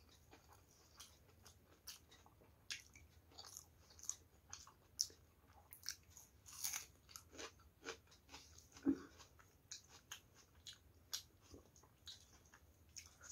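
Close-miked chewing of a mouthful of rice, dal and fried vegetables, with irregular wet mouth clicks and crunches, a few louder crunches among them.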